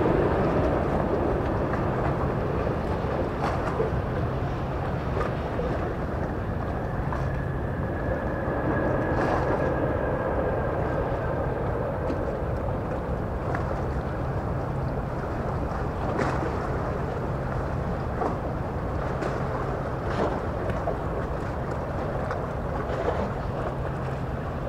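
Steady outdoor ambience with a low engine hum and a few light knocks. The jet noise of an airliner that has just landed fades out over the first couple of seconds.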